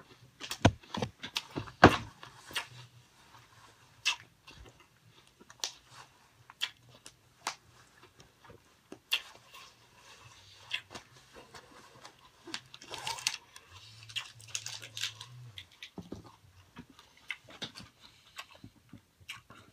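Phone microphone rubbing against cloth in a pocket: irregular rustling, scraping and crackling clicks, the sharpest knocks about two seconds in.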